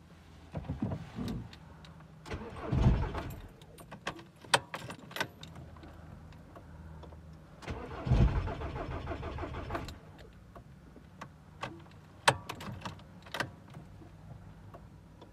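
Audi diesel engine being started with the key twice: each time it cranks, fires and runs for a second or two, then cuts out. The immobilizer, in SAFE mode, is shutting the engine off. Sharp clicks from the key and ignition come between the attempts.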